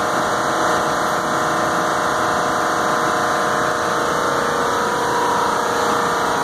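Large commercial air-conditioning equipment running: a steady loud drone with a buzzing hum of several fixed tones.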